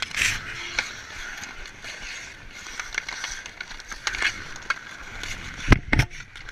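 Ice skates scraping and carving on an outdoor rink, with hockey sticks and the puck clacking during play; two loud, sharp knocks come near the end.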